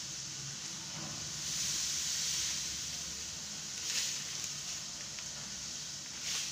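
Garlic and cumin seeds sizzling steadily in hot oil in a kadhai, frying until they turn red-brown. A light click about four seconds in.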